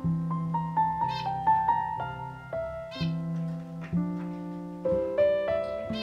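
Slow solo piano music playing note by note, with short high bird calls over it about a second in and again near three seconds.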